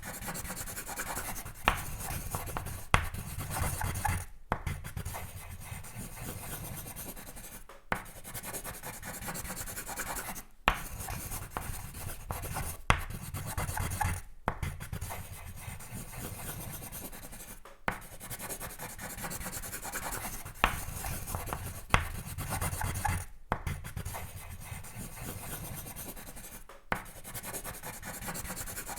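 Pencil sketching on paper: continuous scratchy strokes in swells, broken by short pauses every few seconds, with a few sharp taps.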